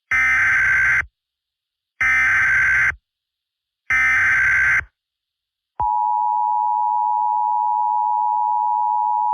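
Emergency Alert System header: three one-second bursts of SAME data tones, about two seconds apart. After a short gap come the steady two-tone EAS attention signal.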